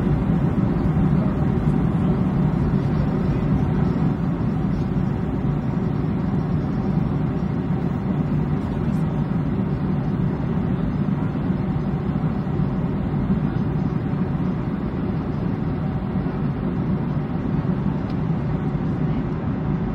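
Steady deep roar of airliner cabin noise in cruise flight, jet engines and rushing airflow heard from inside the cabin. It cuts in abruptly at the start and holds even throughout.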